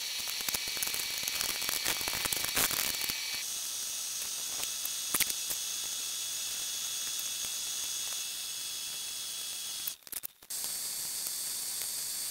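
Steady hiss of background noise, with a run of sharp clicks and snaps in the first few seconds as plastic 3D-printing supports are picked off a printed part. The hiss shifts about three seconds in and drops out briefly near ten seconds.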